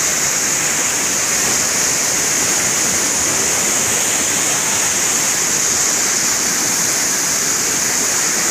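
Steady rushing hiss of a waterfall, white water cascading over rocks, even and unbroken.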